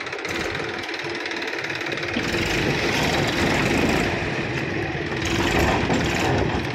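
Massey Ferguson 241 tractor's diesel engine running steadily while the trailer is tipped, growing fuller in the low end about two seconds in.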